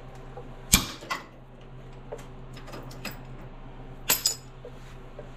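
Metal clinks and clanks of hand tools as a homemade clamp-style tool is worked off an inner tie rod. There is a loud clank about three quarters of a second in, another cluster of clinks about four seconds in, and a steady low hum underneath.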